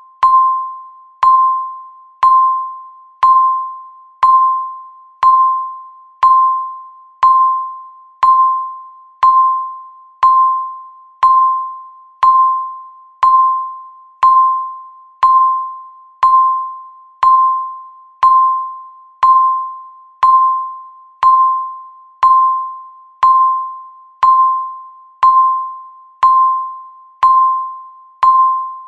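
Countdown timer's electronic beep: a single bell-like tone struck once a second, each fading away before the next.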